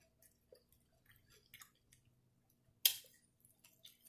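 Quiet eating sounds: chewing nachos, with small clicks of a fork and tortilla chips against the plate and one louder sharp click about three seconds in.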